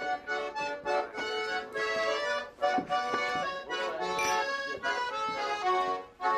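Accordion music: sustained chords under a melody whose notes change several times a second.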